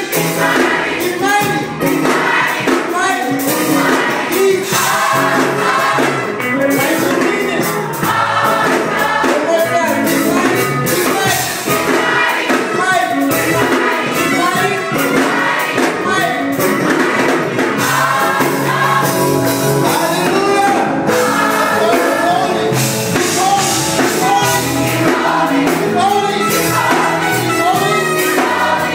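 Youth gospel choir singing loudly in many voices, without a break.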